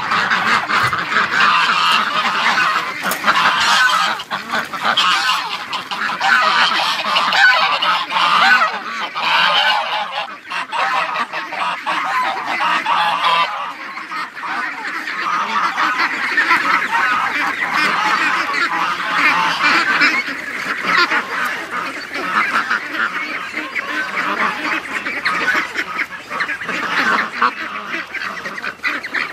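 A flock of domestic ducks and geese calling over one another without a break, with quacks and goose honks overlapping.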